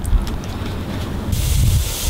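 Low wind rumble on the microphone, then, a little over a second in, a steady sizzling hiss starts as whole dorado fish go onto a hot grill over glowing embers.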